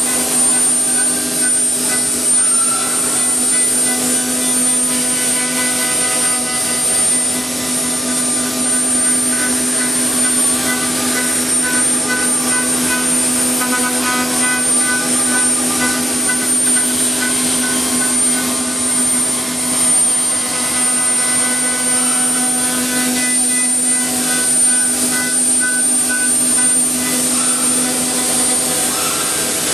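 Woodworking machine running steadily: a continuous high whine over a lower hum, with a faint regular pulsing.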